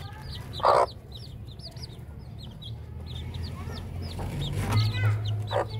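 Baby chicks peeping constantly with quick, thin high chirps, and a hen giving two short clucks, a loud one about a second in and another near the end.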